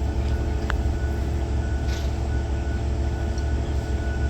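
Heavy truck diesel engine idling steadily, with a brief sharp tick under a second in.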